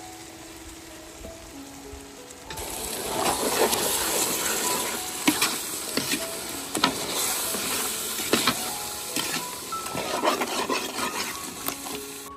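A ladle stirring chunks of curry-coated chicken in a large metal pot over a fire, with wet scraping, sizzling and sharp clacks against the pot. It starts about two and a half seconds in. Soft background music plays throughout.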